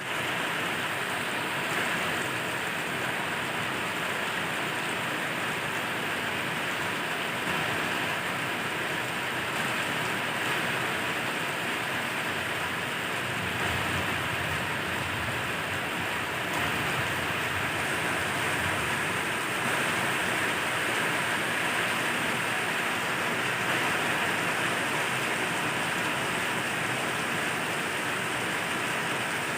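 Heavy rain falling steadily, an even hiss of rain on surfaces.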